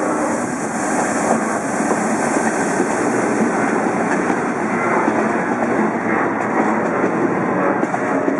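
Three coupled SNCF electric locomotives, two BB 22200s and a BB 7200, passing close by: a steady rolling rumble of steel wheels on the rails, with a few light clicks near the end.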